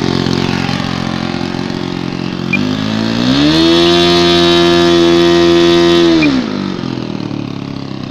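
O.S. 70 four-stroke glow engine on a model airplane idling, then throttled up about two and a half seconds in, held at high speed for about three seconds, and brought back down to idle. It runs smoothly, its carburettor's high- and low-speed mixture freshly adjusted.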